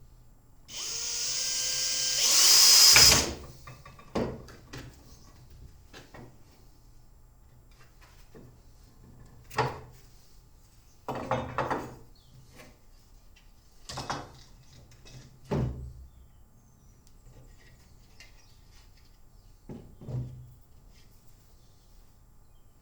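Power drill running for about two seconds, its pitch rising, then a series of scattered knocks and taps of wood.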